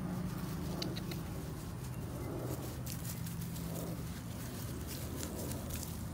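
Two dogs scuffling and moving about in grass: light rustling and scattered ticks of paws and leaves, over a steady low mechanical hum.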